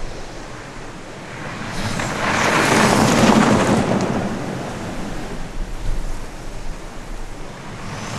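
2018 BMW X3 driving past at speed on a loose dirt track: a rushing of tyres on dirt with the engine underneath, swelling to its loudest about three seconds in and then fading, before the next approach builds near the end.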